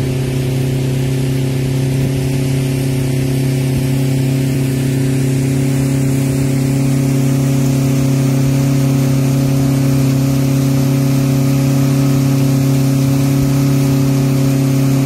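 Speedboat's outboard motor running steadily at speed, a constant unchanging engine tone, over the hiss of water churning in the wake.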